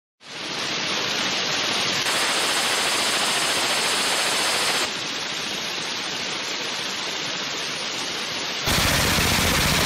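Suppressed belt-fed light machine gun firing sustained full-auto, the shots running together into one continuous rattle, hard enough that the suppressor heats until it glows. The sound jumps in loudness and tone a few times and is loudest near the end.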